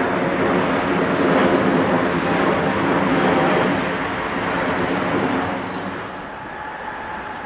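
Airbus A380's four Engine Alliance GP7200 turbofans running at go-around thrust as the jet passes overhead and climbs away, a loud, dense jet noise that fades after about four seconds. About six seconds in it drops to a quieter, steady jet whine.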